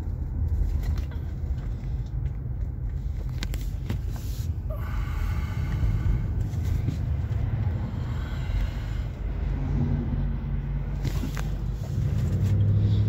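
Low, steady rumble of a vehicle's engine and road noise heard from inside the cab, growing a little louder near the end.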